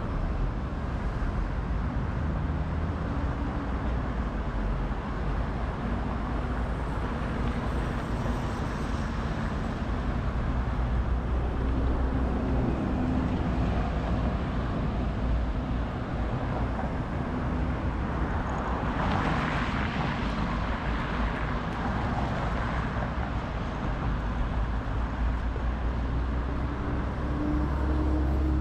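City street traffic: a steady rumble of cars and buses passing, with engine tones rising and falling, and one louder pass about twenty seconds in.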